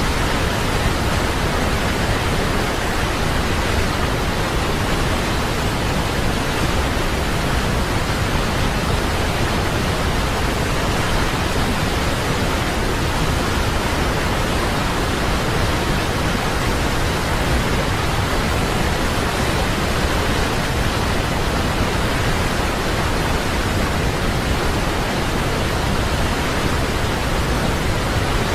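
Waterfall pouring, a loud, steady, even rush of water noise with no breaks.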